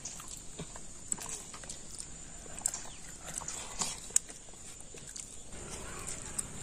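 Puffed rice being handled and eaten from steel bowls: scattered small clicks and crunches as hands mix the dry puffed rice against the metal, with one sharper click about four seconds in.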